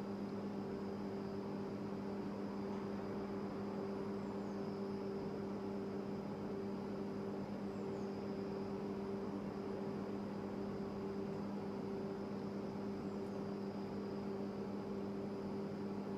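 Steady low electrical hum with a faint high whine above it.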